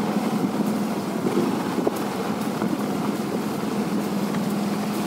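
Motorcycle engine running steadily under a steady rushing noise.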